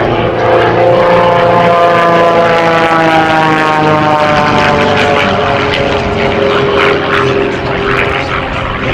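Aerobatic biplane's piston engine and propeller running hard, a steady buzzing drone whose pitch falls from about four seconds in.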